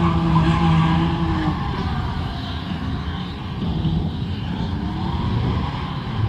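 Drift cars skidding: engines held at high revs and tires squealing, with a steady engine note for the first second and a half, then a rougher mix.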